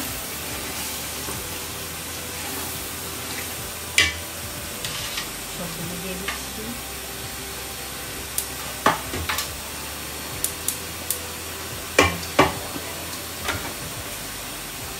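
Curry masala sizzling in a large pot as fish fillets are cooked in it: a steady frying hiss with sharp metal clinks of a spoon against the pot, loudest about four seconds in and twice near the end.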